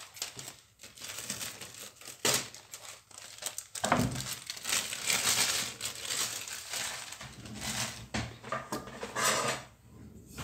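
Small plastic freezer bags crinkling and rustling as they are handled and unfolded, irregular and loudest in the middle, with a few light knocks as they are set down.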